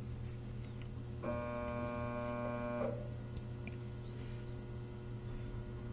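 Steady low hum of a Hobart commercial dishwasher running. About a second in, a single steady pitched tone, like a buzzer or beep, sounds for about a second and a half.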